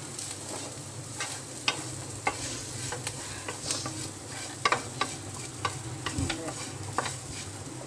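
Wooden spatula stirring clam meat and sliced onions in a frying pan, irregular scrapes and knocks against the pan over a steady frying sizzle.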